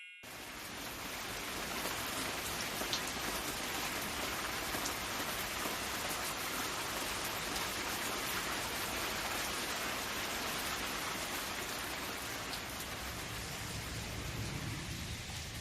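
Steady rain falling, a continuous even hiss that swells in over the first couple of seconds and then holds.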